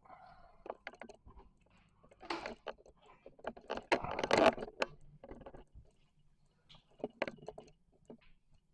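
Scrapes, knocks and crunching as a stuck door is forced open and debris shifts, with the loudest scraping about four seconds in and a few sharp clicks near the end.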